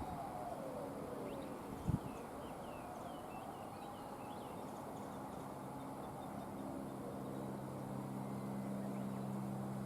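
A diesel locomotive's engine drone, a deep steady note, comes in about halfway through and grows louder as the DD51 diesel approaches hauling the train. Early on, a high whine falls away and small birds chirp faintly, with a single thump about two seconds in.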